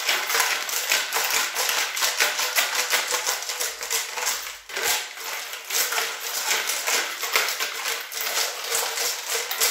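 Nuts, washers and screws rattling and clattering inside a small steel moped fuel tank as it is shaken with nitro thinner inside to scrub rust off its walls. The clatter is dense and continuous, with a brief pause about halfway through.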